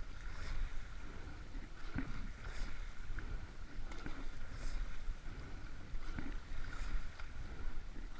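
Rowing eight under way at a steady rate of about 28 strokes a minute: a knock from the oars and boat every stroke, about every two seconds, with water rushing and splashing along the hull.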